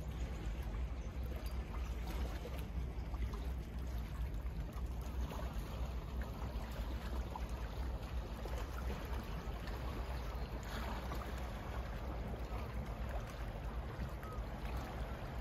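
Small waves lapping and trickling against a rocky shore, over a steady low rumble.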